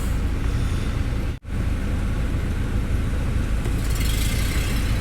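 Steady low rumble of a car's engine running, heard from inside the cabin, with a brief dropout about a second and a half in.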